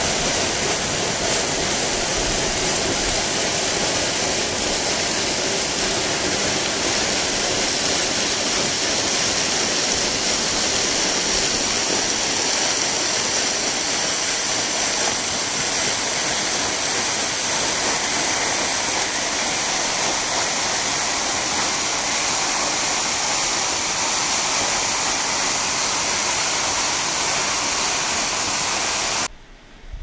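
Waterfall: falling water rushing in a loud, steady roar of white noise, cutting off suddenly near the end.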